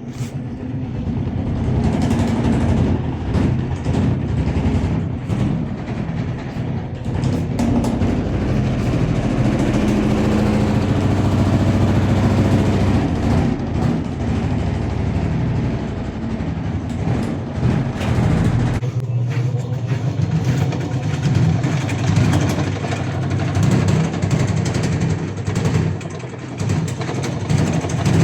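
Automatic washing machine running with a loud, steady low hum and a fast rattle from the vibrating tub. The deepest part of the hum drops away about two-thirds of the way through.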